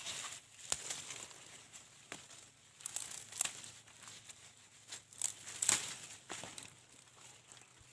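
Dry corn husks and leaves crackling, rustling and tearing in irregular bursts, the loudest about five and a half seconds in.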